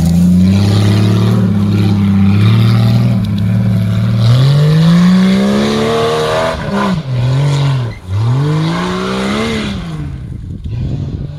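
Jeep Cherokee's engine revving hard under load as it climbs a steep, loose hill. The revs rise and fall, with two sharp drops about two-thirds of the way through. The sound fades as the vehicle pulls away near the end.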